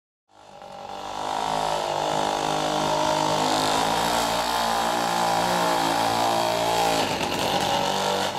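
A small petrol engine running steadily, swelling in over the first second or so, its note changing about seven seconds in.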